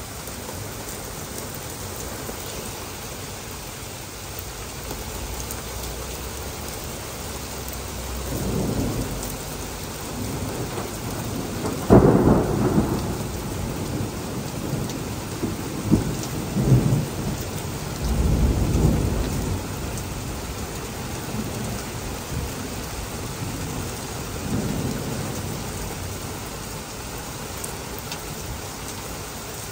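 Heavy rain falling steadily, with thunder: a rumble about eight seconds in, a sharp crack about twelve seconds in that is the loudest moment, then several more rumbles over the following ten or so seconds.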